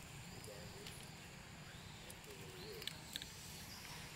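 Faint outdoor ambience: a low steady rumble with a few soft clicks near the end, faint high chirps, and two faint short wavering calls.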